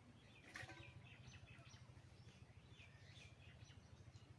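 Faint bird chirps: a run of short, quick calls, with a single click about half a second in, over a low steady background hum.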